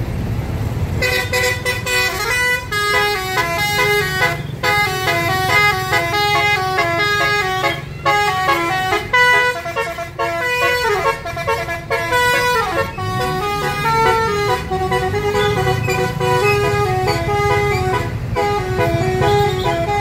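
Bus telolet horns, a set of air-horn trumpets, playing fast stepped melodies of several notes from about a second in. The low running of the bus engines sounds underneath.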